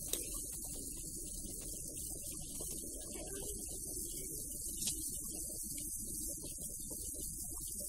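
Pot of fish and vegetables boiling in water: a steady, rough bubbling rumble with a high hiss above it, and a single sharp click about five seconds in.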